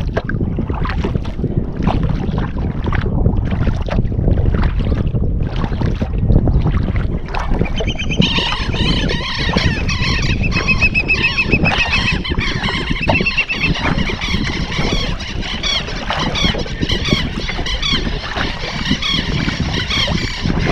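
Sea-kayak paddle strokes dipping in the water, about one and a half a second, over a steady wind rumble on the microphone. From about eight seconds in, a flock of birds flying up calls over it, with many high repeated cries overlapping.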